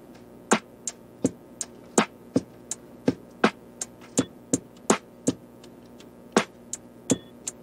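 Background music: a sparse electronic beat of sharp percussive hits, about three a second, over faint sustained tones, with a short pause in the beat about six seconds in.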